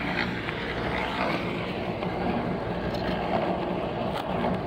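Diesel engine of a knuckle-boom crane truck running steadily at idle, a low even rumble. A few light clicks come about three to four seconds in.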